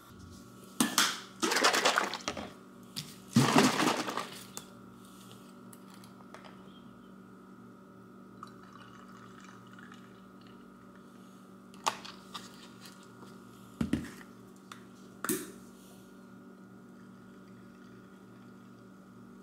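Liquid poured over ice into a drinking glass, in several splashing spurts during the first four seconds, then a few short clinks or knocks later on, over a steady faint hum.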